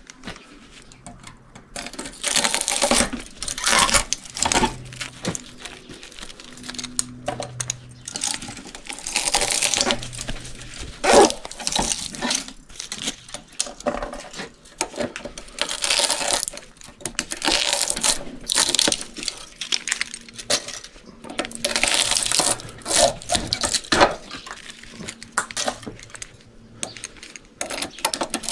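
Pliers gripping and yanking copper windings out of an electric motor's steel stator core held in a vise. Metal clinks, scrapes and rattles come in irregular bursts.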